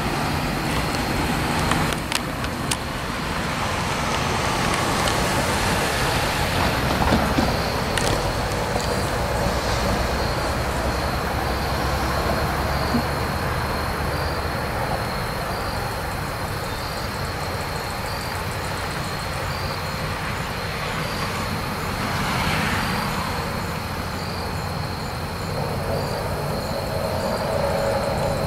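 CVSR FPA-4 diesel passenger train rolling slowly along the track: the locomotive's engine rumbles low and steady under the running noise of the wheels.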